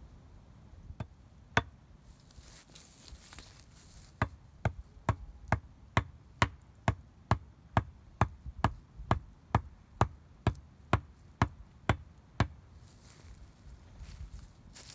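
Hatchet chopping into wood: two single strikes, then a steady run of about twenty sharp strikes at roughly two a second, cutting grooves into a log.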